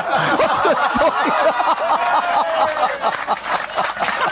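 Audience and panel laughing loudly together in many overlapping voices, with clapping starting to join in near the end.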